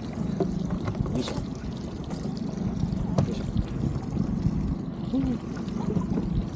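Small fishing boat's motor running steadily with a low drone, over a wash of water and hull noise.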